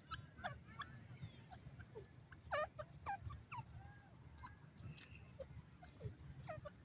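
Grey francolin giving soft, short chirping call notes, scattered and irregular, with a brief louder cluster about two and a half seconds in, over a low steady rumble.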